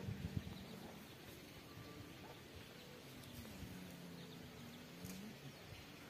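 A few footsteps on a dirt path at the start, then quiet outdoor ambience with one faint, drawn-out animal call about three seconds in that dips and then rises in pitch.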